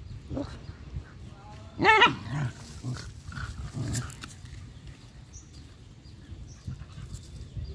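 Dogs play-fighting: one gives a single loud, short bark about two seconds in, with fainter grunts and scuffling in the dirt around it.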